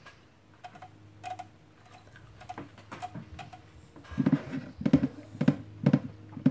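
Small wet mouth clicks of chewing, then, about four seconds in, several loud gulps of beer from a can, about half a second apart, close to the microphone.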